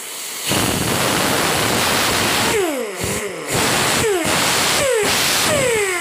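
Compressed air from a scuba tank hissing in bursts through a pneumatic angle grinder's air motor. The grinder runs up on the air, and each time the flow breaks its whine falls in pitch as the disc spins down, with a longer coast-down near the end.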